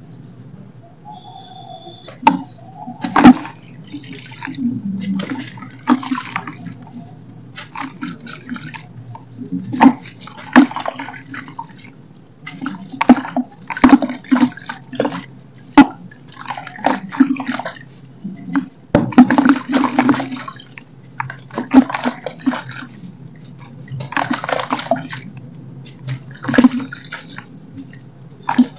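Water-soaked lumps of roasted dirt crumbling in the hands, the grit pouring and splashing into a tub of water in repeated bursts every second or two, with a few sharp snaps as pieces break off.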